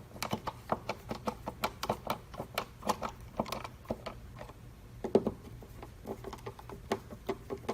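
Screws being hand-tightened with a screwdriver into a filter plate, making a run of light, irregular clicks, several a second.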